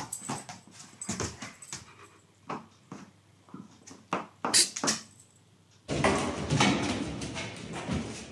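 A dog moving about a wooden floor and nosing a toy: scattered short clicks and taps, the loudest about four and a half seconds in. About six seconds in the sound changes abruptly to a louder, continuous mix of noise.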